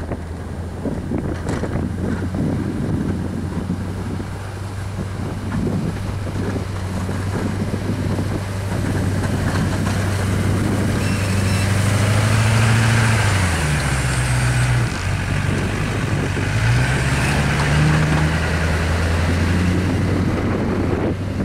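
Chevrolet Silverado dually's Duramax 6.6 L LB7 V8 turbodiesel running under load as the truck pushes snow with a V-plow, with a hiss of snow pushed along by the blade. The engine grows louder toward the middle, dips in pitch briefly about two-thirds of the way through, then picks back up.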